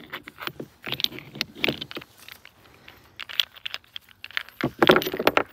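Freshly cast aluminum ingots clinking and clattering as they are handled: irregular sharp metallic clinks, with a louder cluster near the end.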